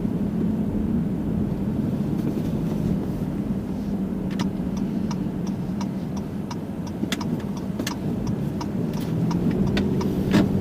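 Car engine and road noise heard from inside the cabin while driving at steady speed, a low steady hum. From about four seconds in, a run of light clicks about twice a second rides on top.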